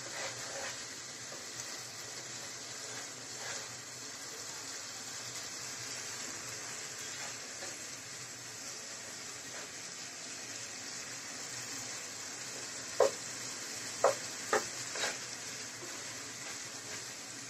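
Duck meat and spice paste sizzling in oil in a pot while being stirred and fried down with a wooden spatula, the slow browning stage of a duck curry. A steady sizzle, with three or four light knocks of the spatula against the pot near the end.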